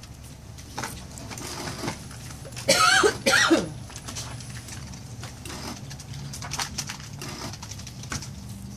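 A fine-tip ink pen scratching lightly across a trading card as lines are drawn, over a steady low hum. About three seconds in, two short, loud, voice-like sounds with falling pitch, one right after the other.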